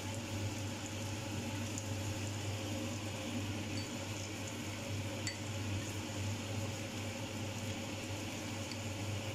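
A few light clinks of wooden chopsticks against a ceramic bowl and plate as taro patties are rolled in beaten egg, over a steady low hum and faint hiss.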